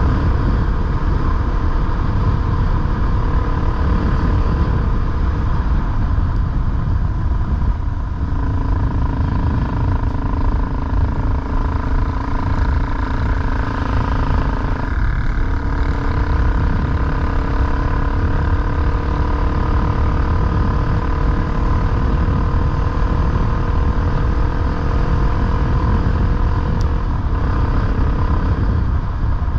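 Off-road motorcycle engine running under way, its note steady and shifting in pitch about eight seconds in and again about fifteen seconds in, over a heavy low rumble of wind and road noise.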